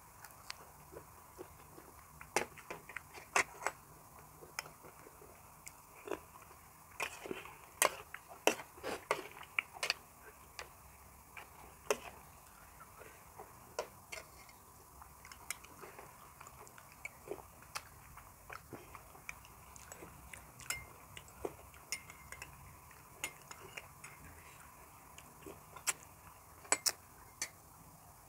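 Close-miked eating: wet chewing, lip smacks and sucking clicks as fresh raw shrimp and vegetables dipped in sauce are eaten by hand. The clicks come thick and fast about a quarter to a third of the way in and are sparser after.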